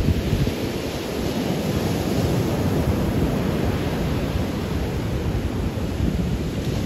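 Surf breaking and washing up the beach, with gusty wind buffeting the microphone.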